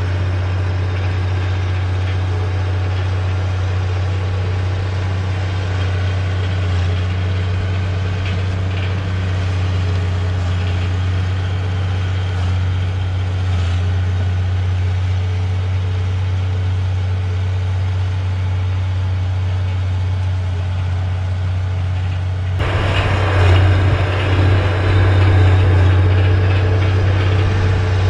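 Bulldozer's diesel engine running with a steady low drone. About 22 seconds in it grows louder and noisier.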